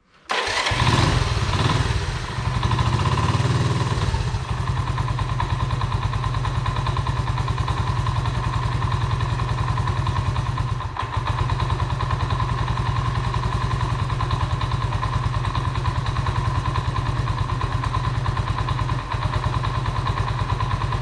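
Honda 125M three-wheeler's small single-cylinder four-stroke engine catching suddenly and running, revving a little in the first few seconds, then idling steadily.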